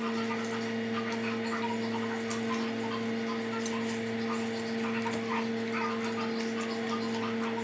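A steady hum, one low tone with a second tone above it, with faint small clicks and taps scattered through it.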